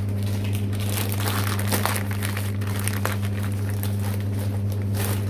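Plastic packaging crinkling and rustling as a bagged suit is handled, over a steady low hum that is the loudest sound.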